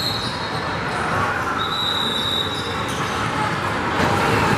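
Basketball gym din: crowd voices and basketballs bouncing on the hardwood, with two long high squeals in the first half, each lasting about a second.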